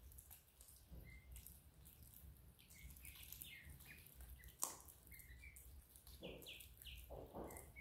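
Faint, scattered high-pitched peeps and chirps from small young animals, with one sharp click about four and a half seconds in.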